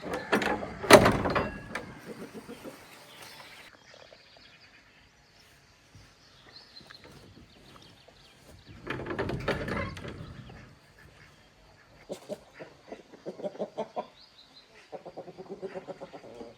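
Farmyard animal calls, birds among them: two loud calls, one near the start and one about halfway, then short runs of rapid pulsed calls near the end.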